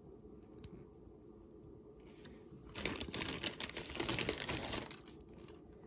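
A bag crinkling and rustling as it is handled and opened, for about two seconds in the second half, with a few light clicks before it.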